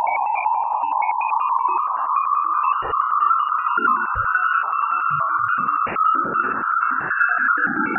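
Radio emissions from Ganymede's magnetosphere, recorded by the Juno spacecraft's Waves instrument and shifted into the audible range. They give a warbling, synthesizer-like electronic hum with rapid crackling flutter, and the pitch slowly rises.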